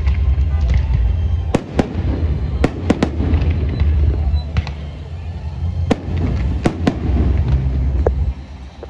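Fireworks display: a continuous low rumble of bursts with sharp bangs and cracks every second or so, some in quick pairs. It dies away near the end.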